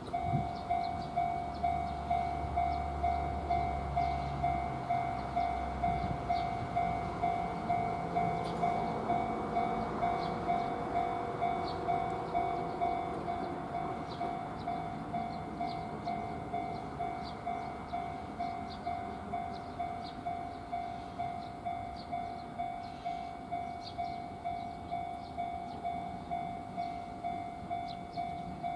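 Japanese level crossing warning bell starting to ring and repeating its ding at an even pace of about one and a half strokes a second, the crossing signalling an approaching train. A low hum sits under it for the first few seconds.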